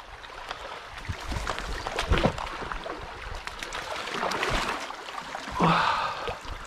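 A hooked trout thrashing and splashing in shallow stream water as it is played and scooped into a landing net, with running water and rustling throughout. A brief voice near the end.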